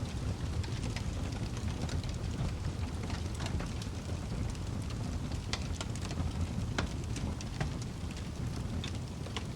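Wood fire burning in a fireplace: a steady low rumble of flames with scattered sharp crackles and pops, a few louder snaps about five and a half and seven seconds in.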